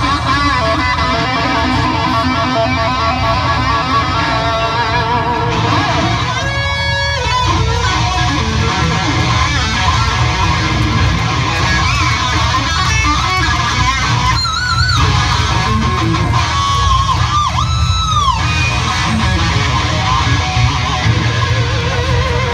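A live band playing an instrumental passage led by electric guitar. Its wavering notes bend up and down in pitch at several points.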